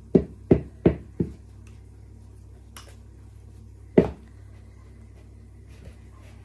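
Wooden spoon knocking on a plastic jug: four quick knocks about three a second, then a single louder knock about four seconds in.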